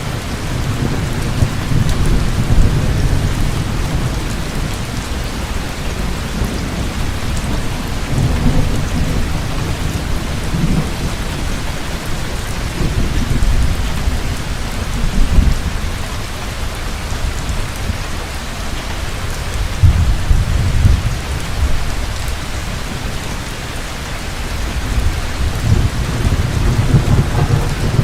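Heavy rain falling steadily, with deep rolling thunder that swells and fades several times.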